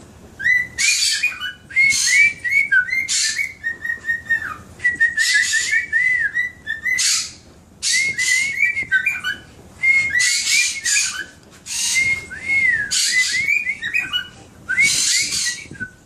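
Cockatiel whistling and chattering: warbling whistled phrases that waver up and down, mixed with short harsh rasping notes, in repeated bursts with brief pauses.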